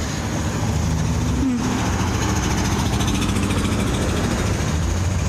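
Road traffic: a motor vehicle's engine running close by with a steady low hum, joined about a second and a half in by the rushing noise of traffic passing on the road.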